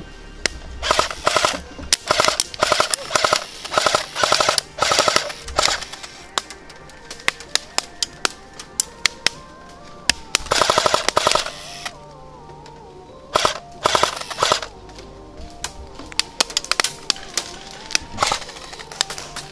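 Airsoft guns firing in rapid full-auto bursts: several short bursts, then a longer burst about ten seconds in and more a few seconds later, with single cracks between them.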